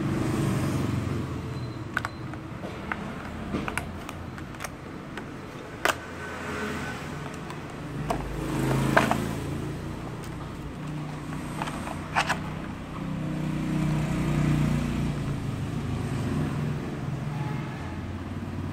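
Stiff clear plastic blister packaging pried and peeled open by hand: crackling, with a few sharp plastic snaps every few seconds. Under it, a steady rumble of road traffic that swells twice.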